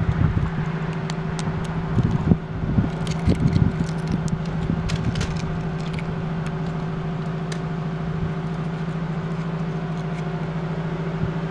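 Loose spalled concrete being pried and broken off a cracked edge by hand: scraping, crumbling knocks and small clicks, busiest about two to four seconds in and thinning out after, over a steady low machine hum.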